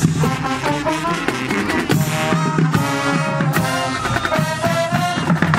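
Marching band playing: brass horns and saxophones holding and moving between notes over a steady drumline beat.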